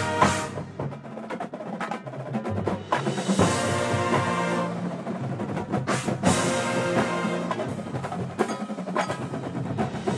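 Drum and bugle corps playing live: a percussion-led passage of sharp drum and front-ensemble strikes, with sustained ensemble chords swelling in about three seconds in and a heavy accent about six seconds in.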